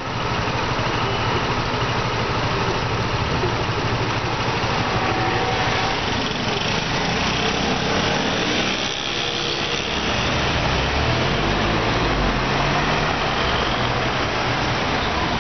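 City street traffic: a motor scooter's small engine running close by and cars driving past, with an engine rising in pitch as it pulls away a little after ten seconds in.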